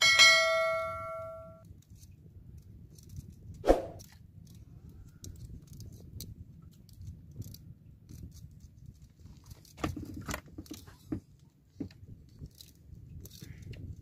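A single clang with a clear ringing pitch that fades over about a second and a half, then a sharp knock nearly four seconds in, followed by light knocks and clicks as a bamboo handline spool and its lures are handled on a boat.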